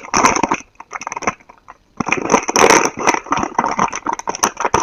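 Plastic and cardboard packaging crinkling and tearing as a blind box is opened by hand, in two spells of dense crackling: a short one at the start and a longer one from about two seconds in.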